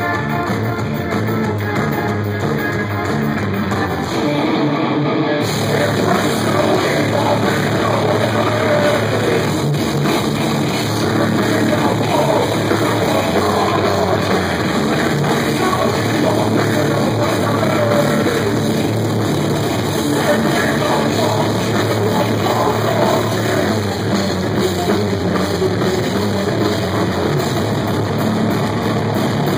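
Live heavy rock band playing loud: distorted electric guitar over a drum kit with cymbals, picked up from the crowd. The sound grows fuller in the high end about five seconds in.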